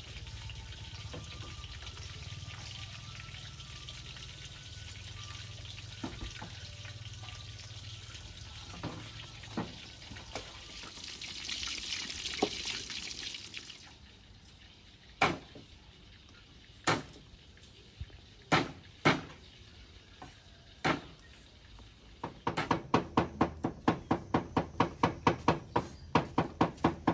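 Food sizzling in a wok, a steady frying hiss for about the first half. Then a few separate knocks, and for the last few seconds rapid knife chopping on a wooden cutting board, about four to five strokes a second.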